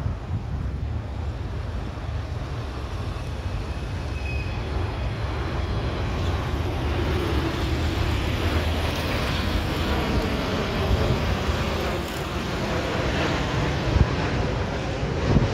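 Boeing 737 MAX 8's CFM LEAP-1B turbofan engines on landing approach: a steady low rumble growing gradually louder as the jet nears overhead, with a couple of brief knocks near the end.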